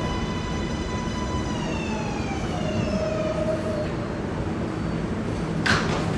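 R188 subway train's electric propulsion whine falling in pitch as the train brakes to a stop alongside the platform, over the low rumble of the cars. A brief hiss comes near the end.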